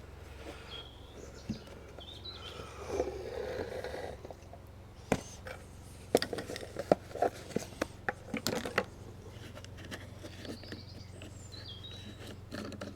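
An old metal tin of wood stain being opened: a run of sharp clicks and knocks as the lid is worked free. Birds chirp now and then behind it.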